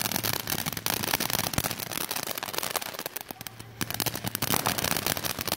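Ground fountain firework spraying sparks with a dense, rapid crackling that thins out a little past three seconds and then picks up again.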